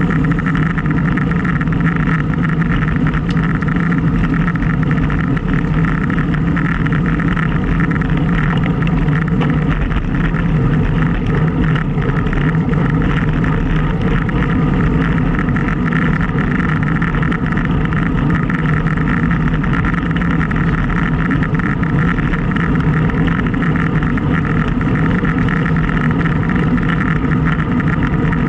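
Wind rushing over a Garmin VIRB action camera's microphone while riding a bicycle, mixed with road and tyre noise. It is a loud, steady rush with no breaks.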